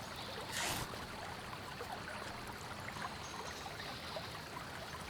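Steady rush of a creek's running water, with a brief scuff about half a second in.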